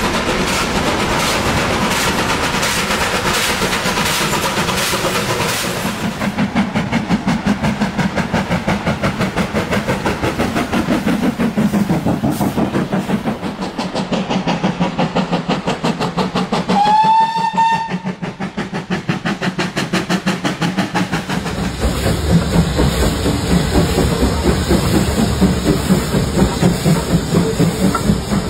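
Steam locomotives working under power, their exhaust chuffing in a rapid, even beat, with a short steam whistle blast a little past the middle. Near the end a BR Standard Class 9F's exhaust beats louder and heavier.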